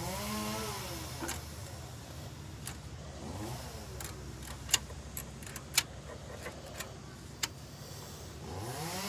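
Scattered sharp metallic clicks and taps from a wrench working on the engine's timing-chain end as the engine is turned by hand to line the timing chain up. In the background a motor rises and falls in pitch a few times.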